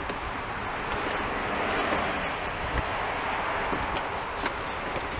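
Wind rushing over the microphone, a steady noise that swells about two seconds in, with a few faint clicks as the jump-starter's cables are handled.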